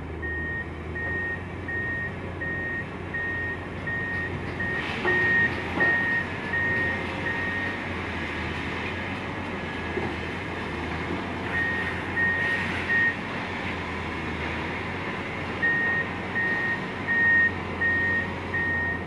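Komatsu hydraulic excavator's diesel engine running steadily while the machine digs muddy soil, with a high electronic warning beep repeating about one and a half times a second, stopping for a few seconds in the middle and then resuming. A couple of brief louder scrapes or knocks come through around the middle.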